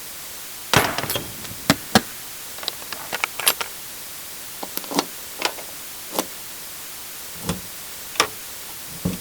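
Truck cab door hardware: a string of sharp clicks and knocks from handles, latches and the door, spaced unevenly, the loudest about a second and two seconds in.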